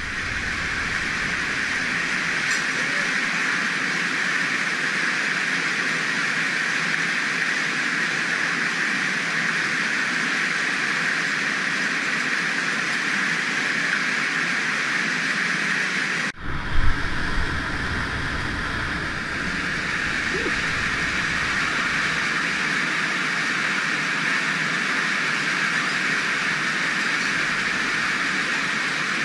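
Steady loud rush of a cascade of water pouring through a narrow rock slot. About halfway through, the rush briefly breaks off and a short burst of low thumping follows.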